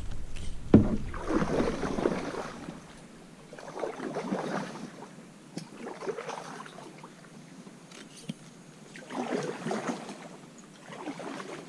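Kayak paddle, split in half and used like a single-bladed canoe paddle, dipping and pulling through the water in about five separate splashing strokes a couple of seconds apart. A sharp knock sounds about a second in.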